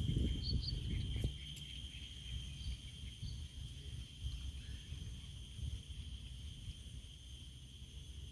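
Outdoor ambience: a steady high insect drone with a couple of faint bird chirps in the first few seconds, over a low rumble of wind on the microphone.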